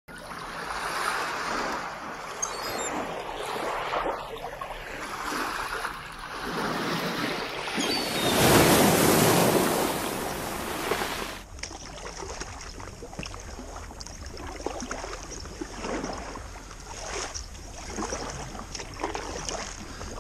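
Sea waves washing in and breaking, swelling and fading, with the biggest one about eight to eleven seconds in. About eleven and a half seconds in the sound cuts abruptly to quieter water lapping, with many small splashes.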